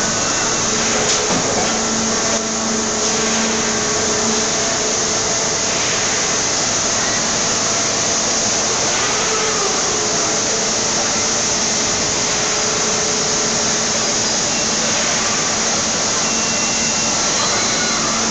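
Steady machinery noise of a hydraulic forging press line running: a constant hiss with a low hum that drops away and returns.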